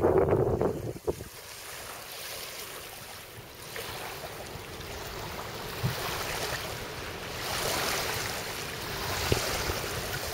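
Rushing noise of waves and wind, with a loud low buffeting in the first second, then a steady wash that swells and fades over several seconds.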